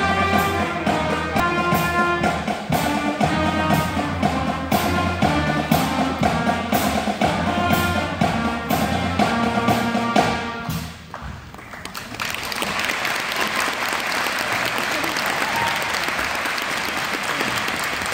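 High school concert band of brass, tuba and drums playing the close of a military medley over a steady drum beat. The music ends about ten seconds in, and after a short pause the audience applauds.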